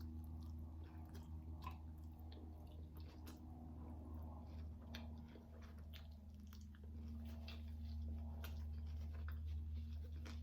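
Close-miked chewing of a mouthful of vegan chorizo taco: many small, irregular mouth clicks, over a steady low hum.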